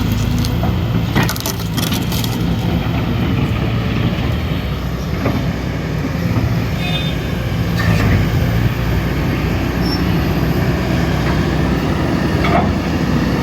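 Kobelco SK220 XDLC excavator's diesel engine running steadily, with a few sharp knocks from the machine.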